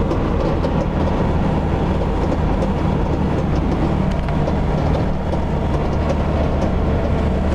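Mercedes-Benz Sprinter 311 diesel van driving at speed, its steady engine and road drone overlaid by repeated, irregular clicking from under the right-hand side of the dashboard. The clicking comes on only from about 70 km/h and its cause is unknown; the owner takes it for a sign that something is wrong.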